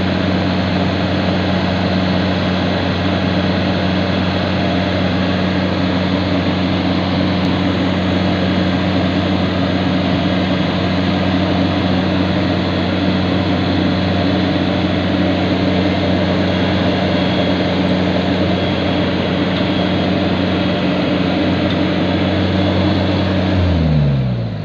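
Yanmar YH850 combine harvester's diesel engine running steadily at high revs, then falling in pitch near the end as it is throttled down.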